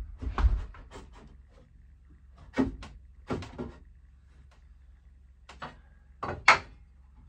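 Irregular wooden knocks and bumps from boards being handled and fitted at the top of a wooden loft staircase, loudest as a double knock near the end.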